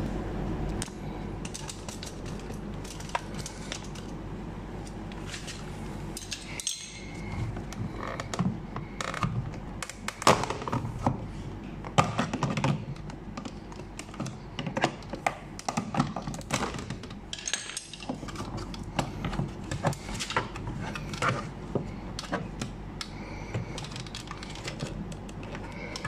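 Plastic clicks, knocks and snaps of a metal pry tool working the power window switch panel loose from a Toyota Yaris driver's door trim, the panel's clips popping free, then rattling as the switch and its wiring connector are handled. The clicks come irregularly, with the sharpest few near the middle.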